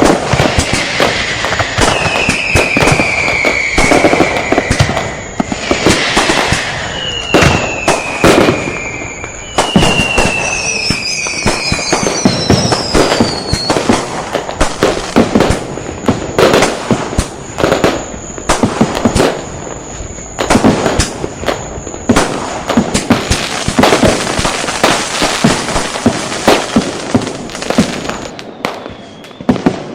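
Firecrackers and bangers going off in a dense, irregular barrage of sharp bangs. In the first half, several long whistles from whistle-type fireworks glide slowly down in pitch over the bangs. The bangs thin out and grow quieter near the end.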